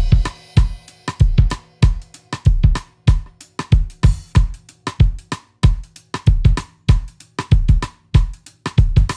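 Background music with a steady drum-kit beat: bass drum, snare and cymbals hitting several times a second.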